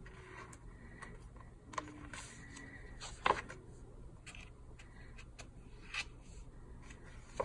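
Paper handling from a sticker book being searched through: light rustles with scattered small clicks and taps, and one sharper tap about three seconds in.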